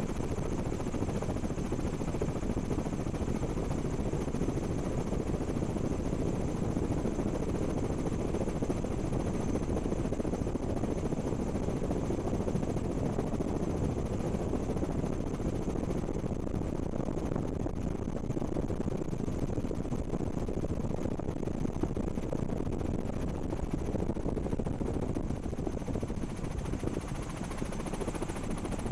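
Steady rotor noise of a helicopter or drone in flight, heard from on board: an even, deep rushing with a faint thin high whine over it.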